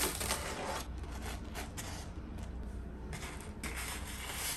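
Scattered light clicks of metal tongs and brief rustling as fried twisted doughnuts and corn dogs are moved around and set down on a wooden cutting board.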